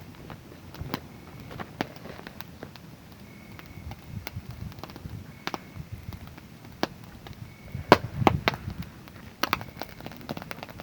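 Wood fire crackling with irregular sharp pops, a cluster of louder ones about eight seconds in, while a cricket gives short chirps every couple of seconds.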